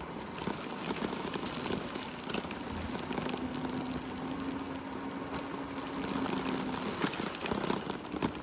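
Gritty crackling of a Segway's tyres rolling over a wet trail, with a steady low hum for a few seconds in the middle.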